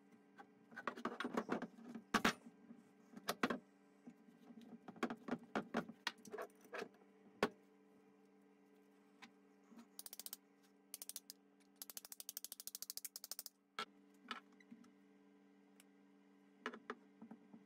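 Hand-assembly sounds of a BMW E30 control arm rebuild: clicks, taps and knocks as metal washers, sleeves and polyurethane bushes are handled and fitted onto the steel control arms. Past the middle come two spells of fast, fine ticking. A faint steady hum runs underneath.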